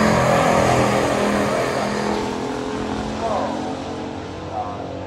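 Two stock muscle-car engines running hard down a drag strip, fading steadily as the cars pull away.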